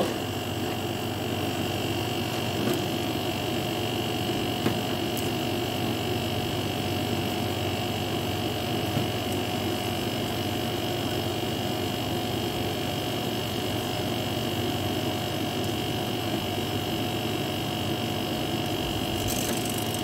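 Carrier window air conditioner running steadily with its refrigerant just topped up: compressor and fan motor hum with a steady high whine over it. A couple of faint clicks from tools on the charging line about three and five seconds in.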